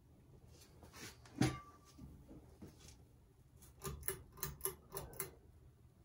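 Sharp clicks and taps as a Hunter Silent Breeze ceiling fan is switched on and starts turning: one loud click about a second and a half in, then a quick run of about six clicks around four to five seconds in. The fan motor itself runs silently under them.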